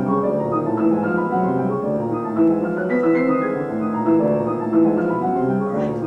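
Two grand pianos playing a passage together, with quick notes that ring into one another. Near the end one piano drops out and the other carries on.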